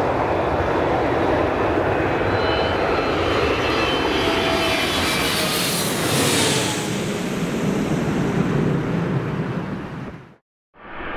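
Twin-engine jet airliner flying low overhead: engine noise with whining tones that slide down in pitch as it passes, loudest about six seconds in, then fading out near the end.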